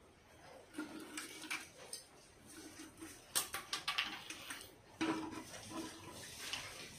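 Small knocks, clicks and rustles at irregular moments, the sound of objects being handled and set down off-camera.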